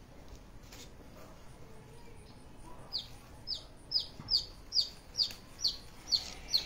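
A bird chirping: a steady run of about nine short, high chirps, each falling in pitch, coming two to three a second from about three seconds in.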